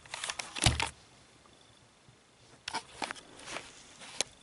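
Handling noise from a handheld laser and camera: a cluster of sharp clicks and rustles about a second in, another cluster about three seconds in, and a single click near the end.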